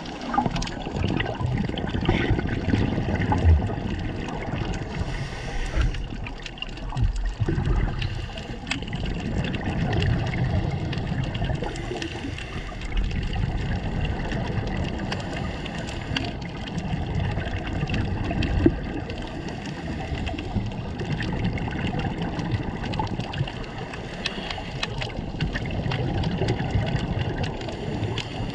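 Underwater ambience heard through a camera's waterproof housing: a steady watery rush with low rumble and many faint scattered clicks.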